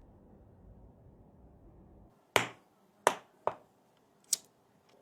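A low steady hum that stops about two seconds in, then four sharp, separate clicks of hard objects being handled and set down, spaced irregularly.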